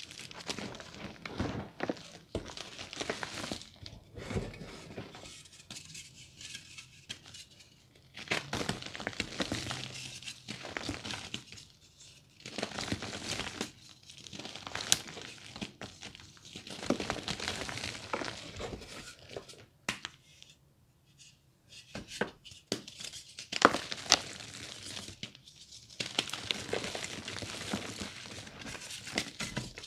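Reformed gym chalk crushed and crumbled by hand over a tray of chalk powder: dry crunching and crackling with sharp snaps, in spells broken by short pauses.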